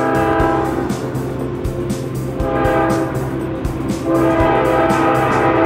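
Horn of a Norfolk Southern GE Dash 9 (C44-9W) locomotive blowing three blasts as the train approaches. The first blast ends about a second in, a shorter one follows near the middle, and a long one starts about four seconds in.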